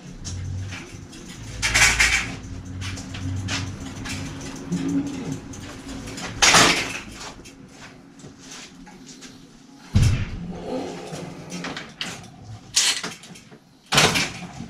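Metal clanks and knocks of bicycles being handled in a workshop: a bicycle wheeled about and set into a repair stand. About five sharp knocks are spread through, the last near the end.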